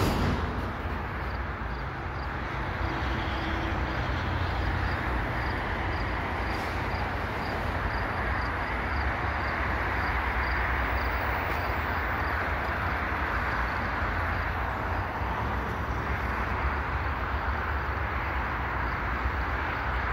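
Loaded double-stack container well cars rolling slowly past on the rails: a steady rumble of wheels and car noise as the train slows toward a stop.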